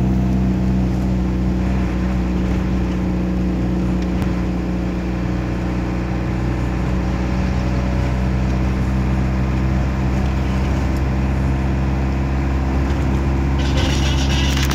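Vehicle engine and road noise heard from inside the cabin while driving at a steady speed, a constant low hum. Near the end a brighter, hissier sound comes in over it.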